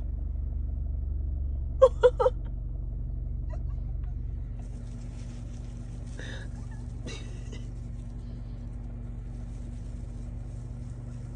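Car engine idling, a steady low rumble heard from inside the cabin. About two seconds in, three short high-pitched vocal sounds cut in quickly one after another.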